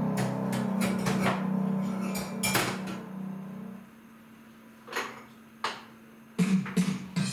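Mugs and crockery clinking and knocking as they are handled at a kitchen counter, over background music. The music stops about four seconds in, two sharper knocks fall in the gap, and new rhythmic music begins near the end.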